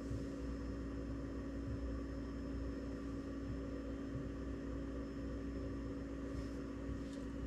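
Steady room background: an even hum with a faint hiss and no distinct event.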